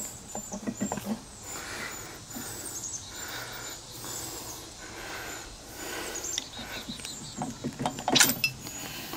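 Scattered clicks and clinks of hand tools and small metal parts as a Prowler trolling motor is taken apart, with a sharper knock about eight seconds in. Birds chirp faintly in the background.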